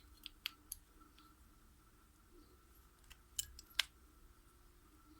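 Scattered faint metallic clicks as the smaller rear brake pad of a Kawasaki KLE 500 is handled and fitted into the brake caliper against its spring bracket, the two loudest clicks a little past halfway.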